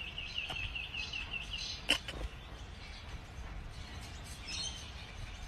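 Quiet outdoor background with a small bird chirping quickly and evenly, about five short chirps a second, for the first second and a half. A single sharp click comes about two seconds in.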